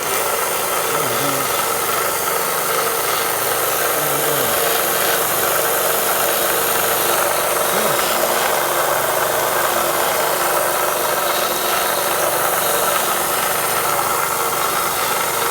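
Harbor Freight 1" x 30" belt sander switched on and running unloaded on its first run, its motor and sanding belt making a loud, steady whir with a steady whine running through it.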